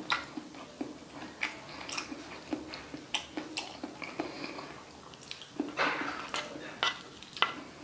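Close-miked mouth sounds of chewing balut (duck embryo): wet clicks and smacks at irregular intervals. About six seconds in there is a short scraping rustle as a wooden spoon digs into the food on the cast-iron sizzling plate.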